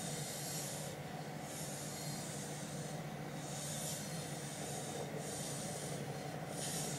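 Plastic planchette sliding across a Ouija board in a series of short scraping strokes, over a steady low hum.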